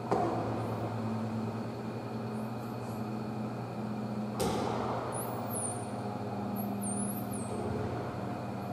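Steady low machinery hum made of several steady tones, the kind of pump hum heard at an aquarium's underwater viewing window. There is a thump at the start, a sharp click about four and a half seconds in, and faint high rising-and-falling whistles near the middle.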